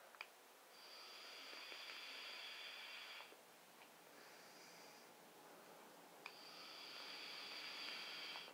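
Two long draws on a box-mod vape, each a steady faint hiss of air pulled through the firing atomizer lasting about two and a half seconds. A click comes just before the second draw.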